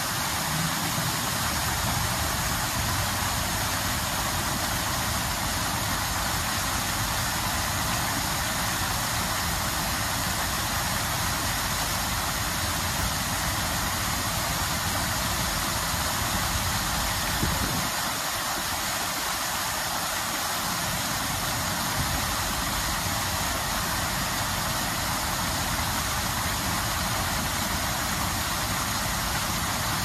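Water jets of an illuminated decorative fountain splashing down into the basin: a continuous, even hiss of falling water.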